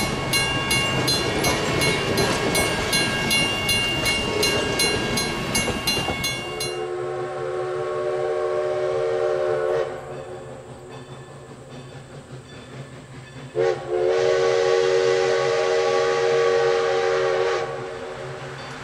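Passenger coaches rolling past close by, wheels ticking rapidly and steadily over the rails. Then the steam whistle of Everett Railroad's 2-6-0 Mogul locomotive No. 11 sounds at a distance: a long blast of about three seconds, a short toot, and another long blast of about four seconds.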